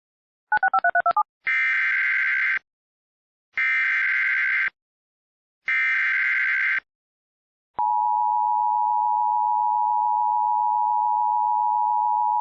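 Emergency Alert System tones for a severe thunderstorm warning. A brief run of rapid alternating beeps comes first, then three SAME header data bursts of about a second each, evenly spaced. The steady two-tone EAS attention signal starts near the end.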